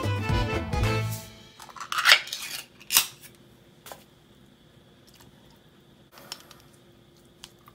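Background music that stops about a second in, then quiet kitchen handling: a brief gritty shake of a salt shaker, a sharp knock about three seconds in, and a few faint clicks as canned tuna is tipped into a plastic colander.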